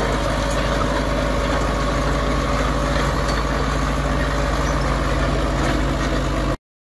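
Cat D4E crawler dozer's four-cylinder diesel engine running steadily at idle, until the sound cuts off abruptly near the end.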